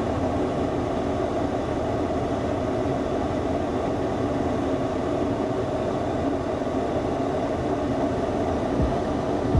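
Steady engine and road noise of a 20-foot box truck driving, heard from inside the cab, with a short low knock near the end.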